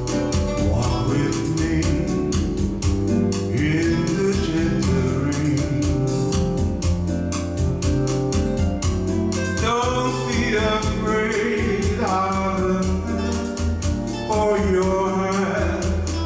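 Yamaha PSR-S950 arranger keyboard playing an instrumental intro: a steady bass line and sustained organ-like chords over a regular percussion rhythm, with a gliding lead melody coming in from about ten seconds in.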